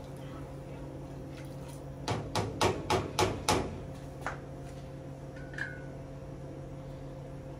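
Kitchen clatter at the stove: about six sharp knocks in quick succession, like a pot, lid or utensil being handled, over a steady low hum. A single fainter knock follows, then a brief high beep.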